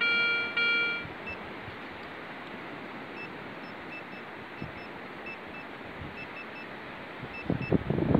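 Handheld metal-detecting pinpointer beeping as it is worked through beach sand near a buried metal target: two loud beeps at the start, then short, faint beeps at irregular intervals. Sand rustles and scrapes as it is dug by hand near the end.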